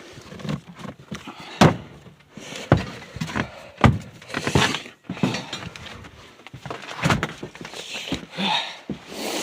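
Scattered thumps and knocks with scuffing and rustling between them, of someone moving about and handling things, with the loudest knocks at about two, four and seven seconds in.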